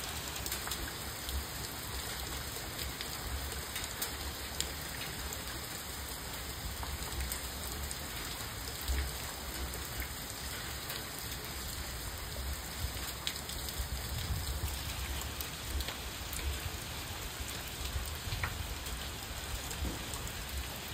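Steady rain falling on wet pavement and foliage, an even hiss with scattered sharp drops ticking through it.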